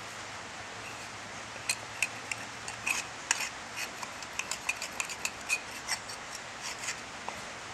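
A hoof pick scraping and clicking against a horse's hoof as dirt is picked out of the sole and around the frog: a quick, irregular run of sharp scrapes and ticks beginning about two seconds in and stopping near the end, over a steady hiss.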